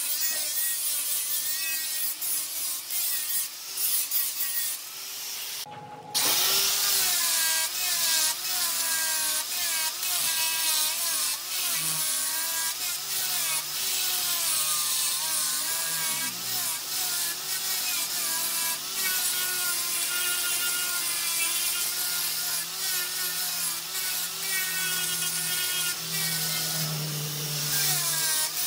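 Wood turning on a lathe, a tool cutting and scraping the spinning workpiece: a steady hiss with wavering whining tones that shift as the tool pressure changes. It breaks off briefly about six seconds in.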